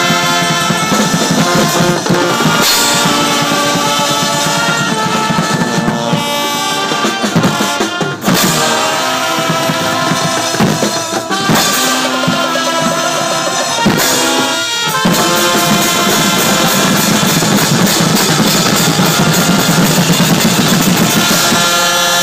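Guggenmusik band playing loudly: brass (trumpets, trombones, sousaphones) over a drum kit and a big bass drum, with bell lyres.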